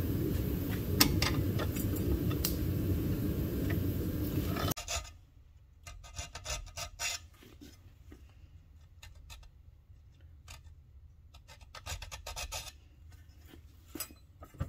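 A steady loud background noise runs for nearly five seconds and stops abruptly. Then a needle file rasps on a small steel gun hammer clamped in a vise, in short, irregular groups of strokes as the filing marks are smoothed out.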